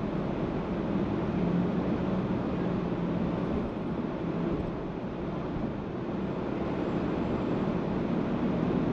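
Car driving along a street: steady road and tyre noise with a low engine hum, easing slightly about halfway through.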